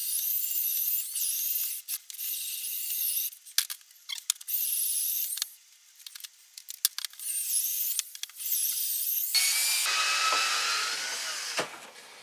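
Scraping, rasping strokes of hand work on a workpiece at a workbench, in stretches broken by a few sharp knocks. Near the end a cordless drill runs for about three seconds.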